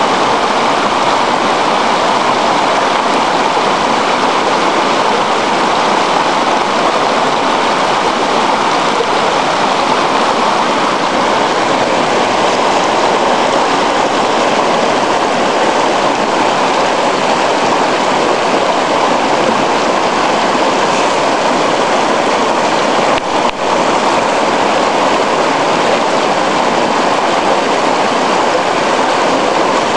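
Shallow river rushing over stones, a loud steady water noise close by.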